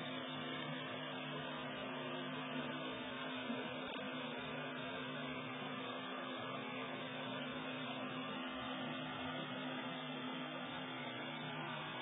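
A steady low hum made of a few held tones, over a constant even hiss, unchanging throughout.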